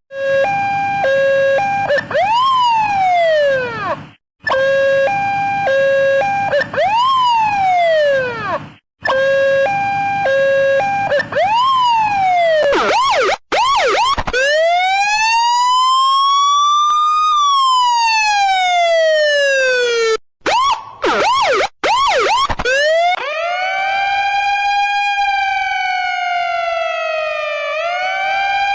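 A string of emergency-vehicle siren recordings cut one after another. Three times a quick stepped two-tone alternation is followed by a single rise-and-fall sweep. Then comes a slow wail that climbs and falls, a few fast yelps, and near the end a smooth rising and falling wail.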